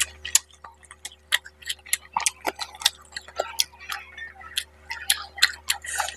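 Close-miked eating sounds: irregular wet clicks and smacks, several a second, as a curried fish head is pulled apart by hand and eaten.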